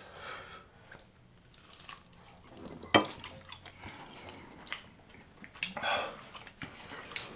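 Light clicks and taps of tableware being handled, with one sharper tap about three seconds in and a short breathy sound around six seconds.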